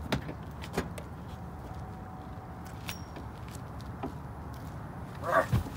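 SUV rear liftgate unlatched and pushed open by hand from inside the cargo area: a few clicks and knocks, then a louder short burst ending in a thump near the end, over a steady low hum.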